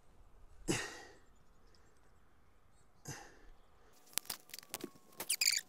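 Hand tools being handled on an asphalt shingle roof: two brief scraping sounds, about a second in and about three seconds in, then a quick run of sharp clicks and rattles near the end.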